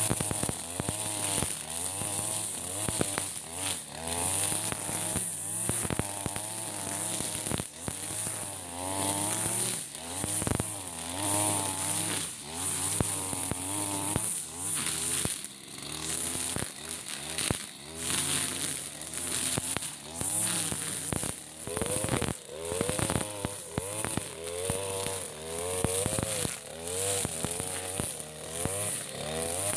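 Backpack brush cutter's engine running under load while cutting tall grass, its pitch rising and falling every second or two as the throttle is worked through each swing. Frequent short clicks sound over it.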